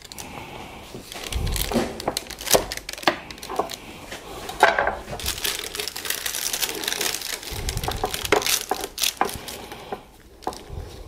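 Cauliflower-crust pizza being cut and served on baking parchment: a knife crunching through the crisp, browned crust and a metal server working under a slice, with the parchment crinkling. Irregular crackles throughout and a couple of dull knocks on the tray.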